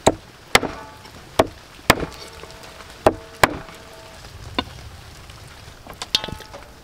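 Heavy cleaver chopping bone-in chicken on a wooden chopping block: six hard chops in the first three and a half seconds, the blade ringing briefly after several of them. A lighter knock and a few small clicks follow near the end.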